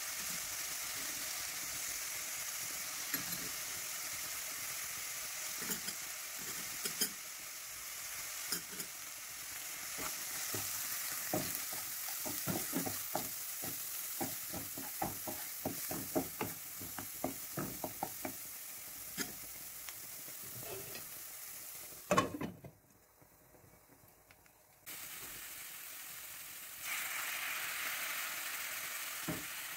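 Onion paste and spices sizzling in hot oil in a nonstick wok, stirred with a wooden spatula in quick scraping strokes through the middle. A sharp knock a little past the middle, then a brief near-silent gap, and near the end the sizzling grows louder as water is poured into the hot pan.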